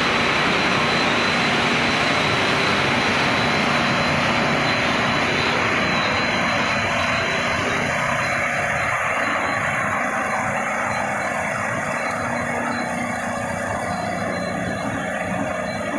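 Food extrusion production line running: a steady machinery roar from extruders, conveyors and a vibrating conveyor, with a thin high whine over it. It grows a little quieter in the second half.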